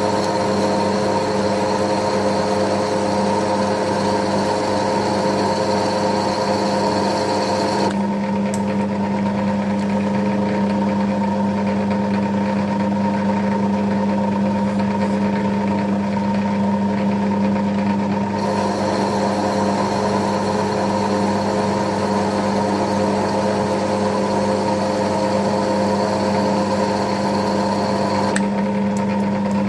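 Centre lathe running steadily under power, its motor and gear train giving a constant hum with a high whine over it. The whine drops away about a third of the way in and comes back near two-thirds.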